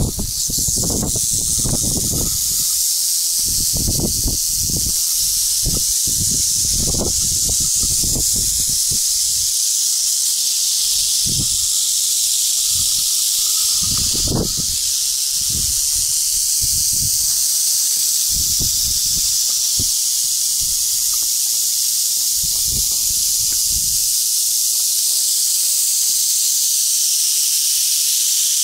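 A mass of rattlesnakes rattling together at their den: a continuous high, hissing buzz with no break. Irregular low rumbles come and go underneath for roughly the first two-thirds.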